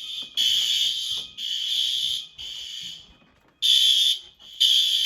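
Building fire alarm in full alarm, its sounders going in pulses of about a second: three nearly back to back, a short gap a little past halfway, then two shorter pulses near the end.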